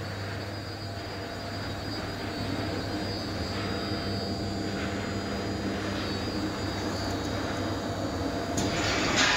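Hazelnut roasting and peeling line running: a steady machinery drone of motors and fans with a constant low hum. Music with a beat comes in near the end.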